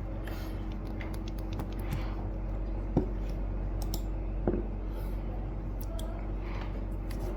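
Faint handling of a small plastic mechanical keyboard switch, with two soft clicks about three and four and a half seconds in, over a steady low electrical hum.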